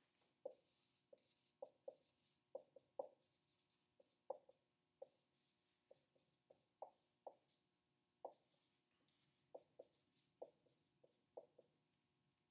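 Dry-erase marker squeaking on a whiteboard while writing: short, separate squeaky strokes, irregularly spaced about two a second.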